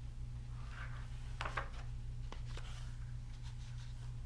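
Pages of a hardcover picture book being turned and handled: soft paper rustles and a few light clicks, over a steady low hum.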